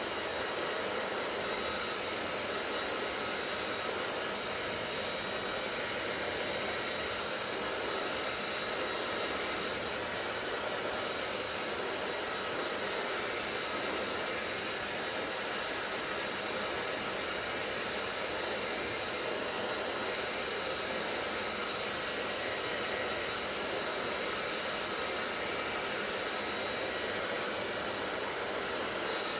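Hair dryer running steadily, a constant blowing whoosh with a faint motor whine.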